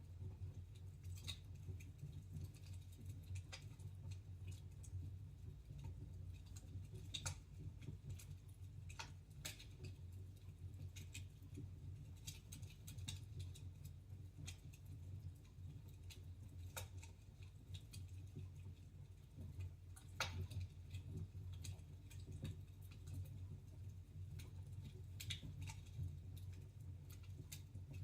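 Wood fire in a fireplace crackling, with scattered sharp pops and snaps every second or two over a steady low hum.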